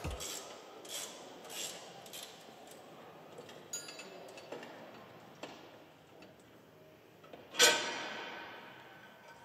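Light metallic clicks and rattles as a hydraulic multi-coupler is fitted and its handle worked, with one loud metal clank about seven and a half seconds in that rings and fades over a second or so.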